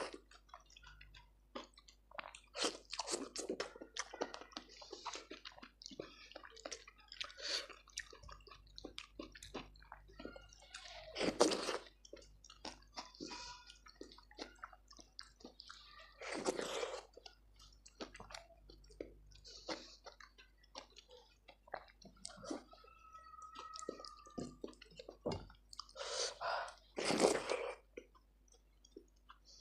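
Close-miked eating sounds of a person chewing soft, wet food such as khichdi with raita: many small smacks and squelches, with a few louder bites.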